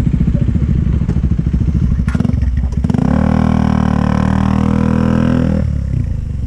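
Motorcycle engine running with an even, rapid thumping, then revved to a steady higher note from about three seconds in for roughly two and a half seconds before dropping back to idle.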